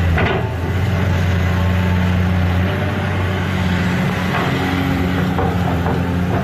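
Steady, engine-like hum of a toy construction vehicle running, shifting slightly in pitch partway through, with a short knock at the start.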